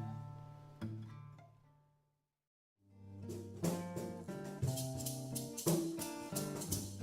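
Instrumental background music: a few sustained notes die away to silence about two seconds in, then new music fades in with a steady pulse of plucked notes.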